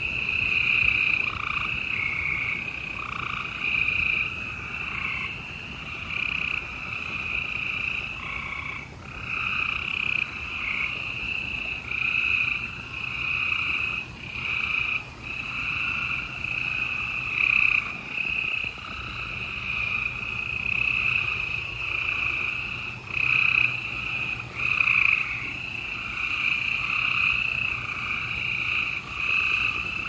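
Chorus of gray treefrogs: overlapping trilled calls from several males, almost without a break.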